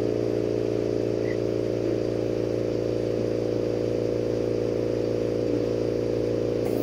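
Steady mechanical hum of several even tones from motor-driven studio equipment, over the faint hiss of a burning lampworking torch.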